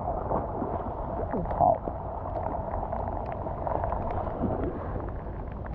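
Wind rumbling on the microphone in rain, a steady low noise with scattered light ticks and one brief louder burst about one and a half seconds in.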